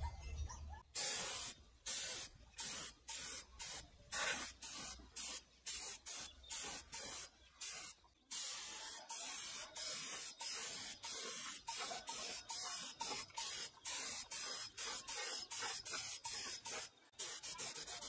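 Repeated short bursts of hissing spray from a pressurized nozzle, about two a second, each cut off sharply, with a brief pause about eight seconds in.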